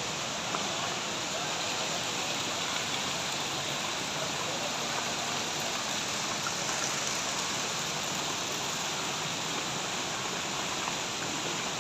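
Steady rushing of the Rain Vortex, the large indoor waterfall at Jewel Changi Airport.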